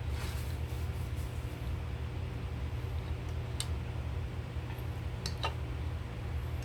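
Eating noises: a few short, sharp clicks over a steady low hum.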